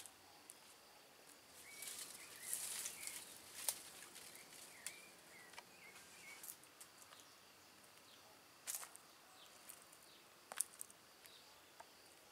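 Faint outdoor ambience: small birds chirping, with short calls between about two and six seconds in, and scattered sharp clicks and rustles.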